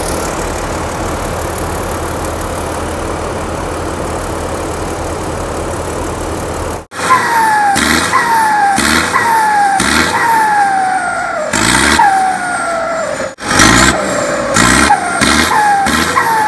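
Diesel engine of a Tamco rice combine harvester idling steadily. After a cut about seven seconds in, a harvester engine is revved in short blips, each one followed by a whine that falls in pitch, about one a second.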